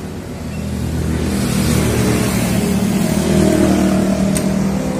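Yamaha Vixion's 150 cc single-cylinder fuel-injected engine running, its speed and loudness rising about a second in and holding there. The engine has an intake air temperature sensor fault (code 22), which is blamed for its sluggish throttle response and stalling.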